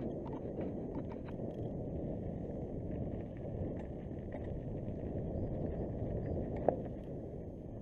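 Mountain bike riding down a dirt trail: a steady rumble of tyres and wind on the microphone, with scattered clicks and rattles and one sharper knock near the end.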